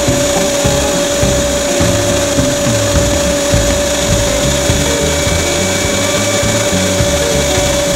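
Unold 8810 electric meat grinder running steadily with a constant motor whine, its auger pushing minced meat through the sausage-stuffing tube into the casing.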